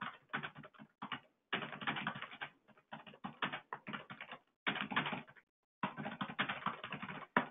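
Typing on a computer keyboard: rapid key clicks in several runs, with short pauses about a second in and again about five and a half seconds in.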